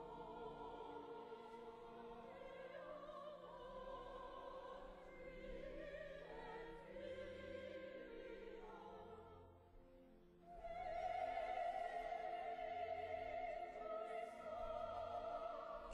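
Choir singing sacred classical music, the held notes wavering with vibrato; the singing dips briefly about ten seconds in, then comes back louder.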